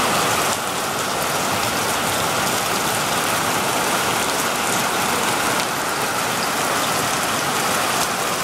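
Heavy rain pouring down steadily in a storm, a dense even hiss of downpour.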